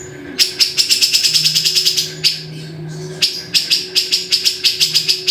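Cucak jenggot (grey-cheeked bulbul) chattering in two fast runs of sharp, evenly spaced notes, about nine a second, with a short break near the middle; a faint steady hum underneath.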